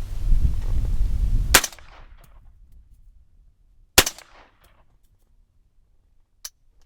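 Two single shots about two and a half seconds apart from a Daniel Defense AR-15 in 300 Blackout firing G2 Research 200-grain subsonic ammunition: the first round cycles the action, the second fails to cycle it. A low rumble comes before the first shot, and there is a faint click near the end.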